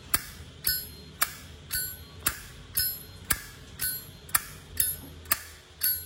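A 1998 polished-chrome Zippo lighter's lid flicked open and snapped shut over and over, about two clicks a second. Many strokes ring on with a bright metallic ping.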